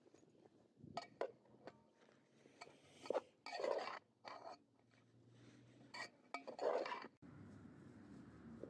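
Metal serving skimmer scraping and clinking against dishes as biryani is served: a few light clicks, then several short scrapes. About seven seconds in, these stop abruptly and a steady background hiss takes over.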